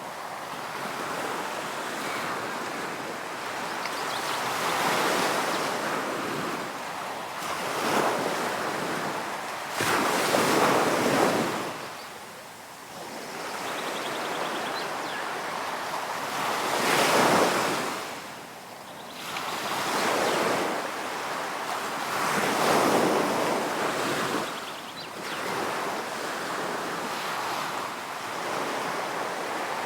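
Ocean waves breaking in repeated surges that swell and fall away, the biggest about ten and seventeen seconds in.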